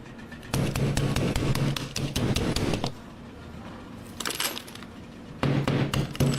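Rapid, repeated hammer strikes in two quick bursts, the first about half a second in and lasting some two and a half seconds, the second starting about five and a half seconds in.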